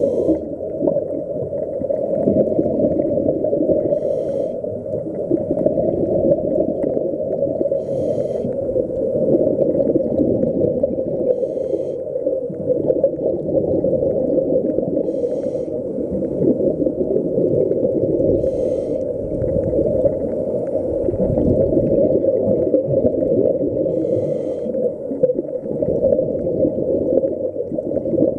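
Muffled underwater rush as heard through a camera in a waterproof housing, with short hissing scuba-regulator breaths every three to four seconds.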